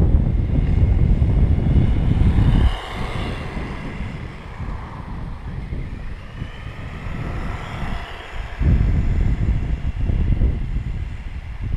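Wind buffeting the microphone, with the high-pitched whine of a 1/16-scale RC truck's electric motor and drivetrain heard between the gusts, rising and falling twice as the truck speeds up and slows. The wind rumble drops away about three seconds in and comes back near the end.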